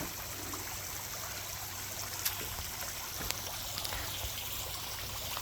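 Water trickling and splashing steadily into a garden pond, with a couple of faint ticks.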